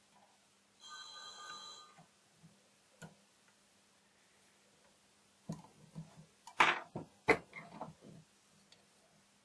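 Sharp metallic clicks and taps of tweezers and small lock-cylinder parts worked in a vise as pins are set into the cylinder housing, a cluster of them in the second half with two louder clicks. Near the start a steady ringing tone sounds for about a second.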